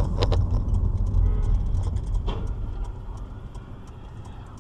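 Low rumble of a car driving, heard from inside the car through a dashcam microphone, with a few sharp knocks at the start and one more a little over two seconds in. The rumble grows quieter after about three seconds.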